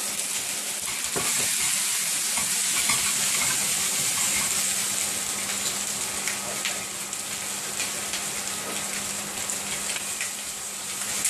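Chicken pieces sizzling steadily as they brown in fat and juices in a frying pan, with a few faint clicks of metal tongs turning them.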